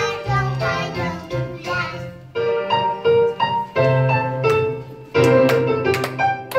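A children's song played on a backing track, with young children singing along.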